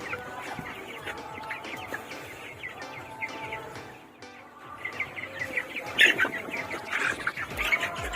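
Chicks chirping in many short high peeps, growing busier and louder from about five seconds in, over background music.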